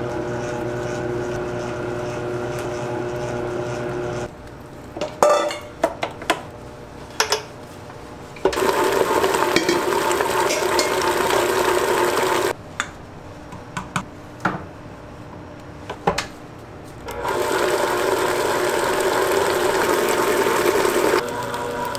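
An electric kitchen machine's motor running in stretches of about four seconds: first a steady hum, then two noisier runs. Between the runs come sharp knocks and clatter of utensils.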